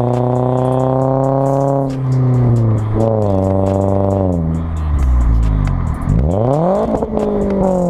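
Exhaust note of a 2012 Toyota Corolla's 1.8-litre four-cylinder engine through a Borla axle-back exhaust, heard right at the tailpipe. The engine speed holds steady, steps down about two seconds in and eases lower, then drops and climbs sharply near the end before easing off again. The owner suspects the exhaust is faulty or a knockoff because it sounds quieter than on other Corollas with the same engine.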